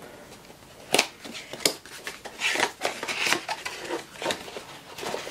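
Cardboard and clear plastic camera packaging being handled and opened: a white inner cardboard box sliding out of its printed sleeve, with several sharp clicks and taps and a scraping rustle in the middle.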